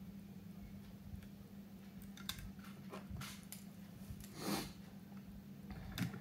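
Light clicks and taps of a small screwdriver and parts being handled on a model locomotive chassis, with a brief soft rush of noise a little past the middle and a couple of sharper clicks near the end, over a steady low hum.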